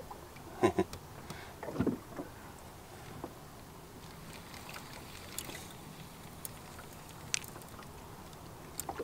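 Quiet open-water ambience in a fishing boat: a faint steady hiss of wind and water, with two short murmurs about one and two seconds in and a few light clicks later on.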